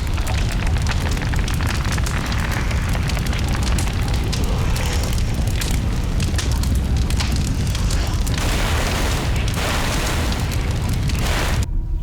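Volcanic eruption sound effect: a deep continuous rumble with dense crackling, cutting off suddenly near the end.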